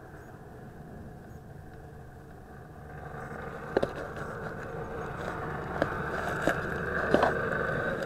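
WLToys V262 quadcopter's motors and propellers heard from a camera strapped to the frame: a steady buzzing hum that gets louder about three seconds in. Four sharp clicks come through in the second half.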